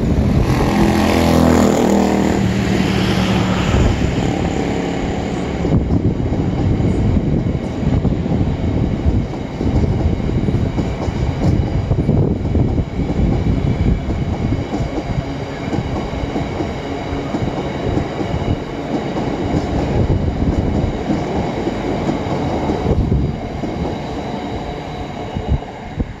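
Freight train of red bogie box wagons rolling past, the wheels clattering and knocking over rail joints and points in an uneven run. A pitched whine sounds over the first three seconds. The clatter thins near the end as the last wagons go by.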